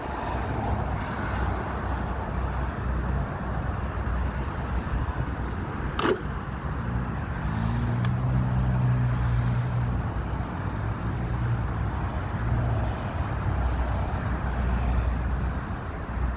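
Steady road traffic running. A nearer vehicle's engine hum rises from about seven to ten seconds in, and a single sharp click comes about six seconds in.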